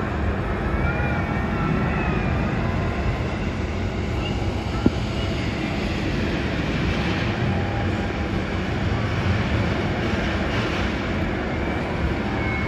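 Steady low rumble of vehicle noise, with one sharp click about five seconds in.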